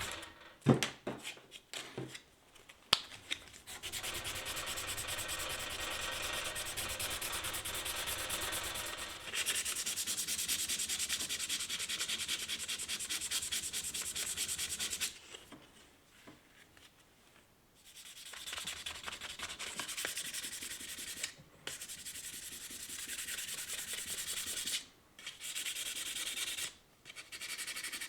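Hand sanding of a knife with sandpaper: quick, even back-and-forth rubbing strokes in long runs, with pauses between them. A few sharp knocks are heard in the first three seconds.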